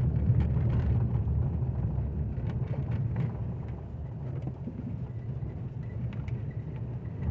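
Car road and engine noise heard from inside the cabin while driving: a steady low rumble that eases off somewhat partway through.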